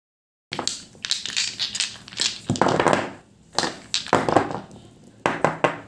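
Small plastic Pidilite paint jars with screw caps clattering and knocking together as they are scooped up and shuffled in the hands, with scrapes against the paper beneath. It starts about half a second in, as a string of uneven clatters, and ends with a quick run of sharp knocks.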